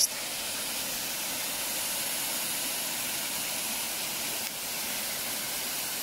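Steady rush of a waterfall pouring down a rocky ravine.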